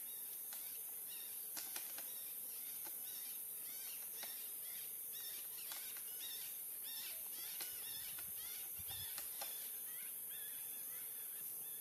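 Outdoor forest ambience: small birds chirping in many short, repeated calls over a steady high-pitched hiss, with a few faint sharp clicks.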